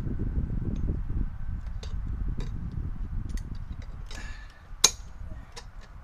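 Metal parts being handled: scattered light clinks and clicks as a bracket held in locking pliers is worked, with one sharp, loud metallic click a little before five seconds in. A low rumble runs under the first four seconds, then fades.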